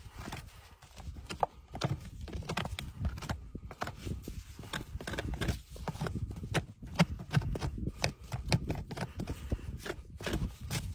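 Farrier's hand tool scraping packed dirt and sole from a horse's hoof, a quick, irregular run of short scrapes and knocks.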